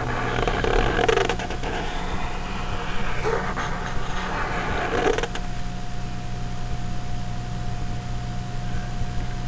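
Electric pedestal fan humming steadily. Over it, a pen scratches on paper in patches during the first five seconds, then stops.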